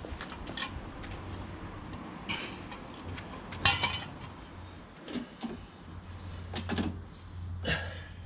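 Steel axle stand and jack gear clinking and clanking as they are set in place under the raised car: a few separate metallic clinks, the loudest about halfway through, over a low steady hum.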